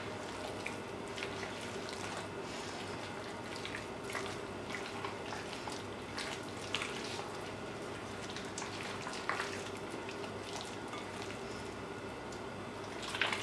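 A bare hand squishing and mixing chicken pieces in wet batter in a glass bowl, giving irregular soft squelches and wet clicks.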